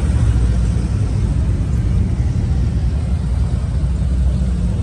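Steady low rumble of a pack of cruiser motorcycles riding close behind, mixed with wind buffeting the phone's microphone on a moving bicycle.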